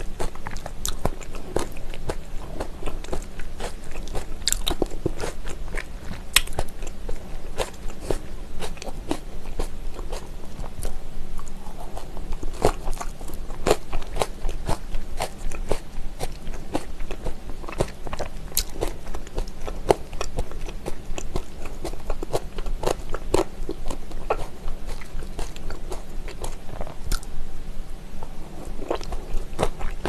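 Close-miked chewing of spicy seasoned raw oyster salad with vegetables: a steady run of crunchy bites and short sharp mouth clicks.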